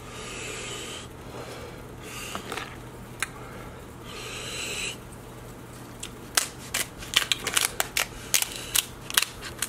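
Kitchen scissors cutting through the shell of a cooked king crab leg: a quick run of sharp snips and cracks in the second half.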